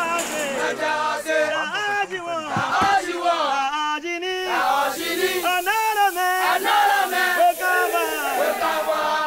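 A group of voices chanting together in chorus, with held and sliding notes that overlap.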